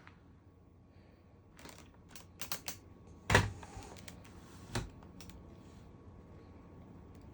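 Several light clicks and knocks, then a sharp thump about three seconds in followed by about a second of hissing noise, and another knock a moment later.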